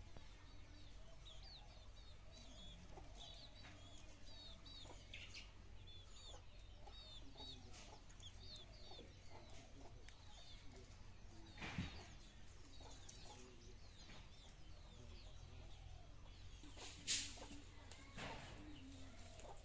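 Faint chickens clucking and small birds chirping over and over, the chirps thickest in the first half. Two sharp knocks come about twelve and seventeen seconds in.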